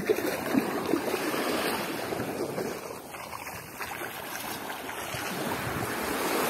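Steady rushing, churning water with a few sharper splashes, as a hooked fish is fought in at the water's edge.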